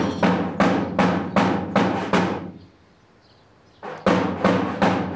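A large drum beaten in a steady rhythm of about three strokes a second, each stroke ringing briefly. The beating breaks off for about a second in the middle, then starts again.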